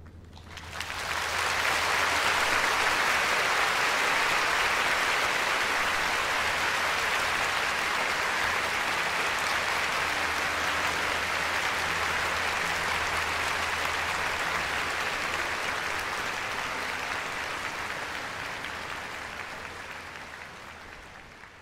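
Large concert-hall audience applauding, building up about a second in, holding steady, then fading away near the end.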